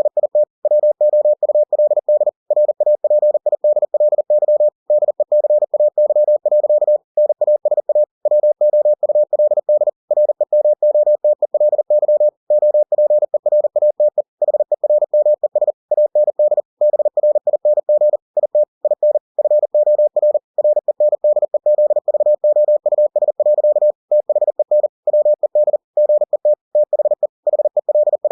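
Computer-generated Morse code sent at 40 words per minute: a single steady, mid-pitched tone keyed on and off in rapid dots and dashes, with slightly longer gaps between words.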